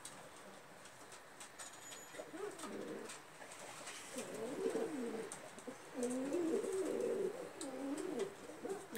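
Domestic pigeons cooing, a run of low, wavering coos that begins about two seconds in and grows more frequent and louder in the second half.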